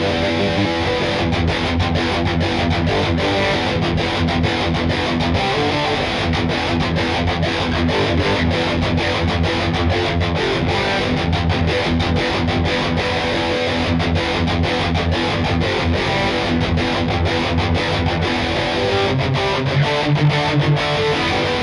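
LTD EC-401FM electric guitar with active pickups played through heavy distortion: metal riffing, dense and loud, broken up by many short stops.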